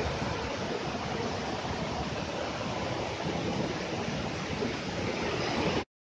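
Steady rushing roar of falling water from the Prenn waterfall, without a break.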